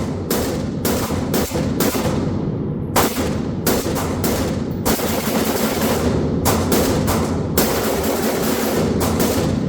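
Springfield Hellion (VHS-K2) 5.56 mm bullpup rifle fired rapidly in semi-automatic, about twenty sharp shots in quick strings with a short pause midway. A steady low background sound runs beneath the shots.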